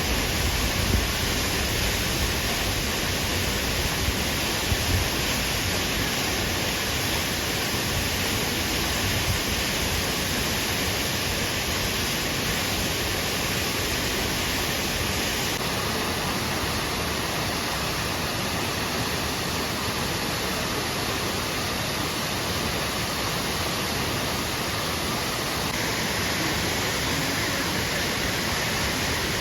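Akiu Great Falls, a large waterfall, rushing steadily as a constant even roar of falling water, with a few low bumps in the first ten seconds.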